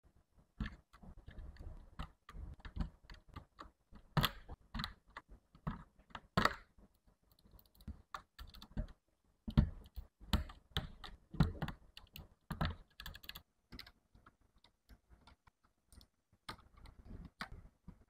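Mechanical keyboard switches being pulled out of their sockets and replacement switches pressed in: irregular plastic clicks and snaps, with a lull about two-thirds through.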